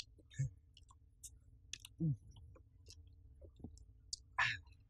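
Exhausted men giving short groaning breaths three times, with small clicks and crackles of plastic water bottles being opened and drunk from.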